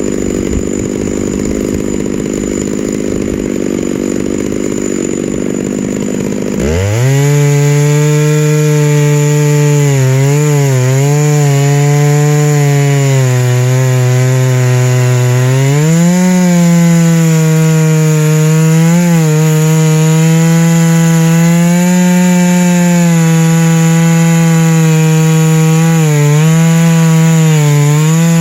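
Two-stroke chainsaw idling, then revved to full throttle about seven seconds in and held there while ripping a white spruce log lengthwise. The engine pitch sags and recovers several times as the chain loads up in the cut.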